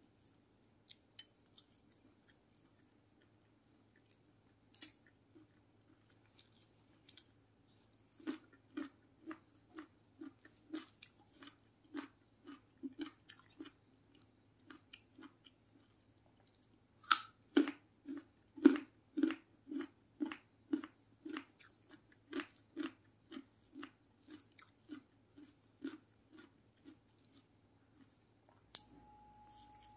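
Close-miked chewing of fried chicken and raw vegetables, eaten by hand. Scattered small mouth clicks at first, then steady rhythmic chewing about two times a second from about a third of the way in, with a loud crisp bite about halfway through.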